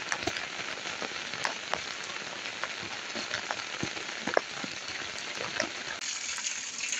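Heavy rain falling steadily, an even hiss with many scattered louder drops striking close by.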